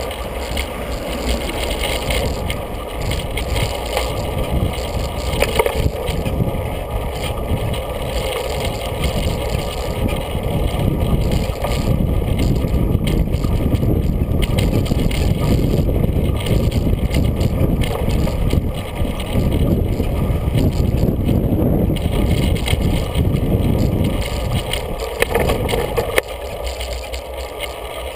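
Steady rumble of a bicycle riding over a paved street, tyre and wind noise picked up by a camera mounted on the bike; it grows heavier a few seconds in and eases near the end.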